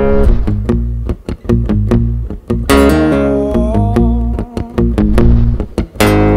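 Background music: a pop song with plucked guitar and a steady beat.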